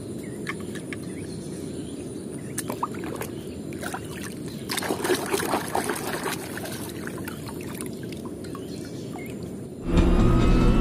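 A hand splashing and churning through muddy water over a steady low rush of water, with a few light clicks of die-cast toy cars being handled. Near the end, loud racing-car engine sound cuts in suddenly.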